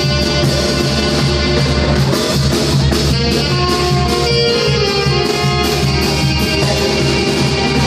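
Live band music played through a PA: two saxophones carry a melody over a drum kit and timbales, with a steady beat.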